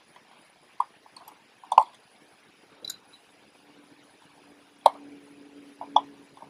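A handful of small, sharp clicks and taps, about six spread over several seconds, from a precision screwdriver and tweezers working the small metal parts inside a partly dismantled Canon AF35M II film camera.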